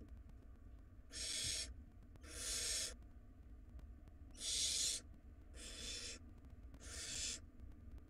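Barn owl nestlings giving five harsh, hiss-like calls, each about half a second long, spaced roughly a second apart.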